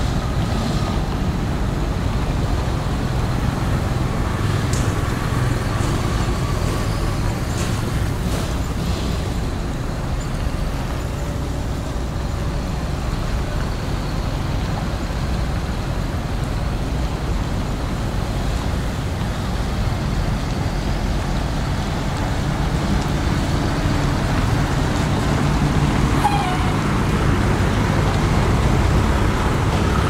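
Heavy diesel engine of a Shacman dump truck running at low revs, a steady low rumble that grows somewhat louder in the last third, with road traffic passing behind it.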